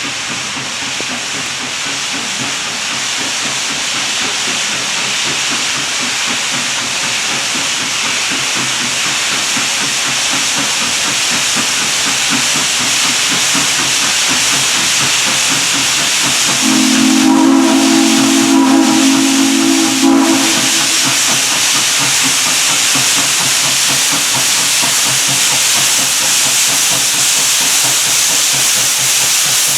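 Southern Railway 630, a 2-8-0 steam locomotive, hissing steadily, growing slowly louder, with one long whistle blast of about four seconds a little past the middle.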